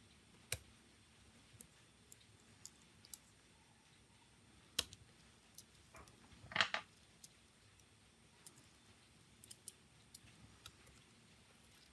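Sparse small clicks and taps of tweezers and a metal pry tool on a Samsung Galaxy S7 Edge's internal parts as its board connectors are worked loose and the motherboard is lifted. About six and a half seconds in comes a brief scrape, the loudest sound.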